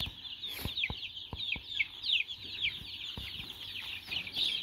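A crowd of baby chicks peeping nonstop, many high, quickly falling peeps overlapping each other, with a few light knocks and taps among them.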